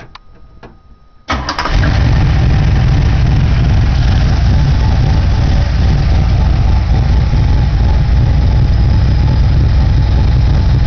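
A 1968 Camaro's reworked 355 small-block Chevy V8, with a 500-lift Summit hydraulic cam, a Holley 750 carburettor and 2.5-inch true dual exhaust through Thrush mufflers, fires up suddenly about a second in after a few faint clicks. It then idles loudly and steadily.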